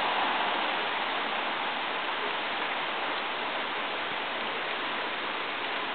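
Steady rain falling, an even hiss of water that eases slightly in the first second or two, then holds.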